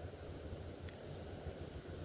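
Steady low rumble of outdoor background noise, with one faint short tick about a second in.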